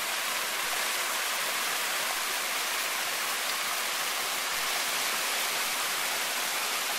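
Waterfall splashing steadily, heard close up: a constant rush of falling water over icy rocks.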